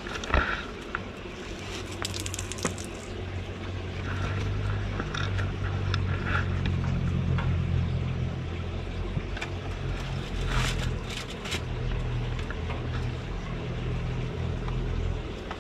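A low, steady mechanical hum that shifts in pitch a couple of times, with a sharp knock about half a second in and light clicks and rustles scattered through.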